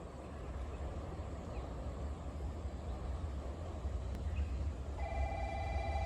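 Steady low rumble, then about five seconds in a railway warning bell starts ringing, a fast-warbling electronic bell that signals an approaching train.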